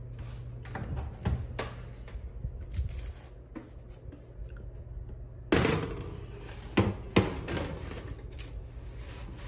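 Oven door opened and a metal half sheet pan of cookie dough slid onto the oven rack, with two sharp metal clanks a little past the middle, over a steady low hum. A steady rushing noise sets in suddenly about halfway through.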